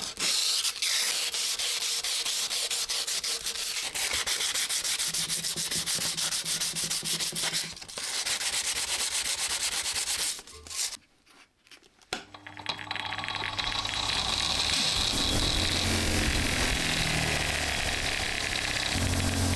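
Rapid back-and-forth rubbing strokes of hand sanding, stopping about ten seconds in. After a short pause, a small electric power tool starts and runs steadily with a low hum.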